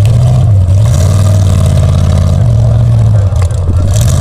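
Lifted Chevy pickup's engine running loud as the truck drives through mud, its pitch wavering and rising partway through as it revs.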